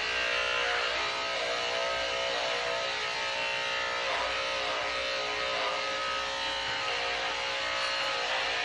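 Background music with plucked guitar.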